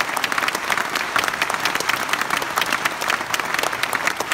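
Audience applauding: dense, steady clapping that fills the hall.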